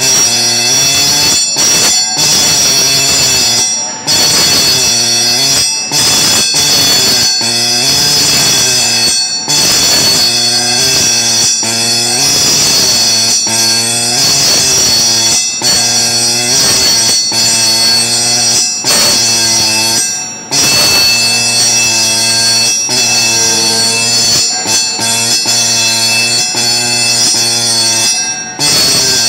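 Pneumatic engraving pen hammering letters into a steel cylinder: a loud, shrill buzz whose pitch wavers, broken by brief pauses every second or two.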